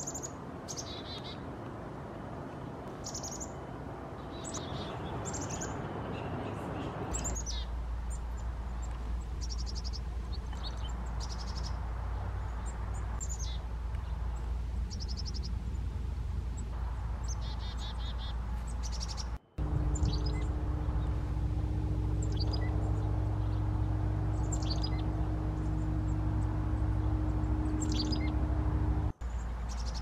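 Black-capped chickadees calling with short, high notes repeated every second or two; some notes slide downward and some come in quick runs. Beneath them runs a steady low hum, which about two-thirds of the way in gains a droning tone. The sound cuts out briefly twice.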